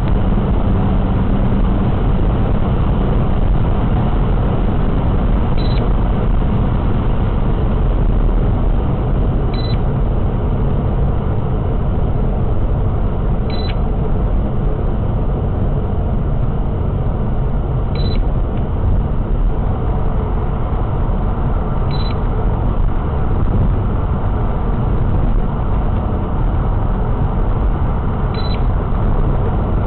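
Steady road and engine noise inside a car cruising at highway speed, with a short high beep about every four seconds from a Blu Eye police-radio detector signalling a police C2000 radio nearby.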